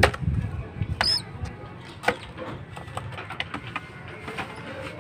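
A caged hoopoe moving about and pecking at seed on the cage floor: scattered light taps and clicks, with a brief flutter near the start and one short high squeak about a second in.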